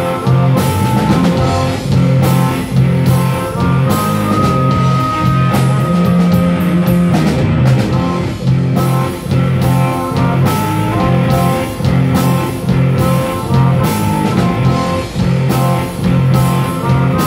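A live blues-rock band playing loudly: electric guitars, bass and drum kit, with an amplified harmonica played through a handheld microphone riffing in short repeated notes and holding one long note about four seconds in.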